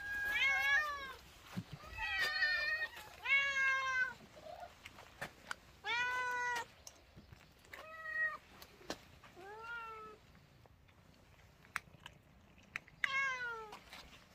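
Domestic cats meowing at feeding time around a shared food bowl: about seven meows, the longest about six seconds in and the last near the end, with faint small clicks between the calls.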